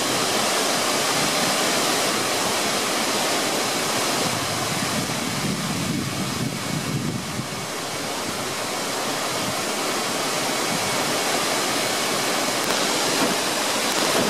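Waterfall pouring into a plunge pool: a steady, even rushing of falling water.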